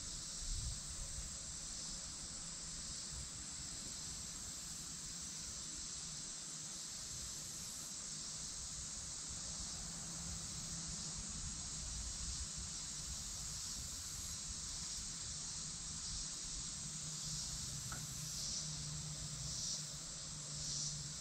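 Steady high-pitched chorus of summer insects, pulsing more strongly near the end, over a low rumble.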